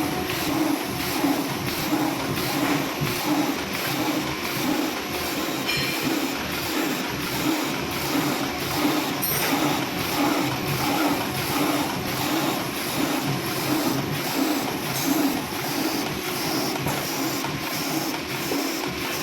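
Cold-cutting bag-making machine running continuously, with a steady rhythmic mechanical clatter as it cycles through its feed and cut strokes.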